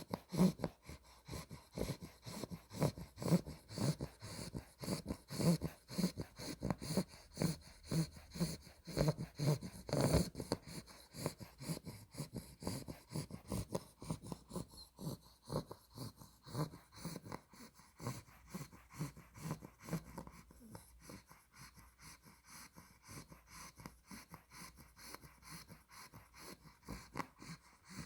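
Olde English Bulldog puppy snoring in its sleep, short quick breaths at about two a second, with one louder snore a third of the way in. The snoring grows softer through the second half.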